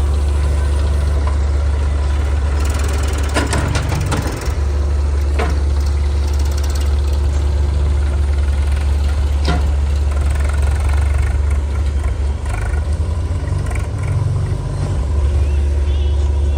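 Heavy diesel engine of earthmoving or farm machinery running steadily close by, with a strong low drone and a few short knocks and clanks scattered through it.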